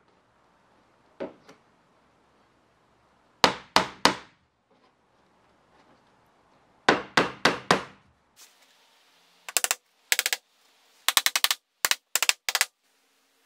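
Hammer driving small nails through a wooden strip into OSB, in runs of sharp strikes: about four a few seconds in, about five halfway through, then quicker, lighter taps in short clusters near the end.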